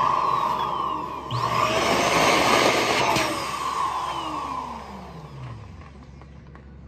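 Electric balloon pump motor whirring as it inflates a balloon. It dips briefly about a second in, starts again, then fades away with a falling pitch in the second half.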